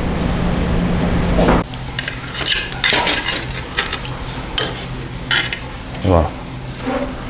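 A steady background rumble cuts off about a second and a half in. After it comes a metal spoon clinking against small dishes on a metal tray, several short separate clinks.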